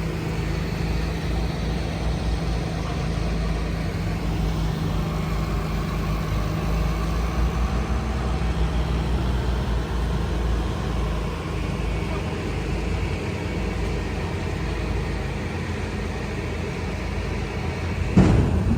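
Heavy engine running steadily with a low drone, and a single sharp thump near the end.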